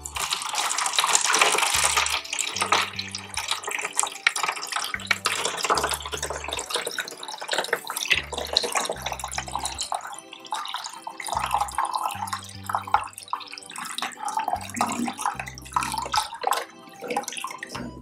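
Water pouring and splashing from a plastic pitcher into a plastic toy baby bathtub as it fills, loudest in the first couple of seconds.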